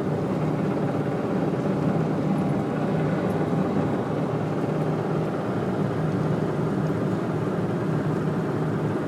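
BNSF freight train running at speed, a steady low rumble with a faint hum through it.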